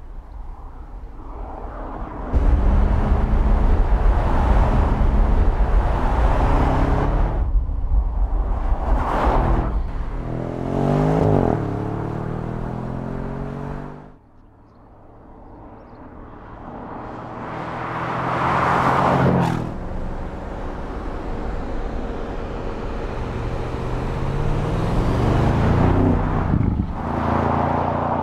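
Audi S7 Sportback's twin-turbo V8 accelerating and passing by several times, its note rising through the gears and falling away as the car goes past. The sound cuts off suddenly about halfway through, then builds again to another pass.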